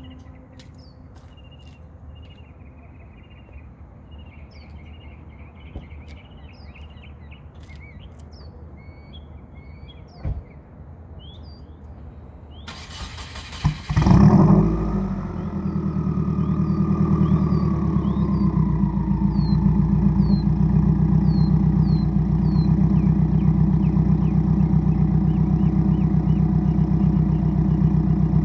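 Birds chirp over quiet background for about the first thirteen seconds. Then a Subaru WRX's FA20DIT turbocharged flat-four engine, fitted with unequal-length headers, a catted J-pipe and a cat-back exhaust, cranks and starts with a loud flare. It settles into a steady idle, with a whine that falls in pitch over several seconds.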